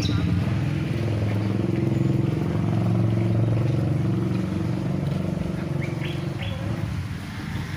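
A vehicle engine running steadily, with a low pulsing hum. There are a few short high chirps about six seconds in.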